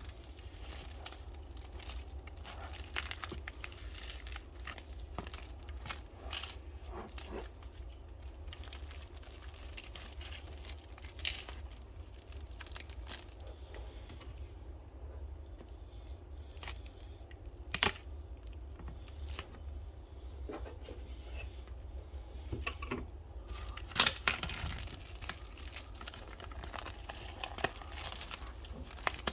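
Packaging being opened and handled: plastic and paper crinkling and tearing, with scattered sharp clicks and knocks from small parts being handled, the loudest about two-thirds of the way through. A steady low hum runs underneath.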